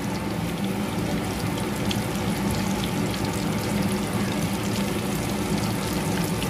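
Shami kababs deep-frying in a pot of hot oil: steady sizzling and bubbling.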